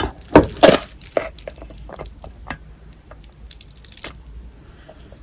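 Wet squelches and clicks of a spoon working through a bowl of cockle bibimbap with rice and seasoned vegetables, the loudest few strokes in the first second and a half, then softer scattered ones.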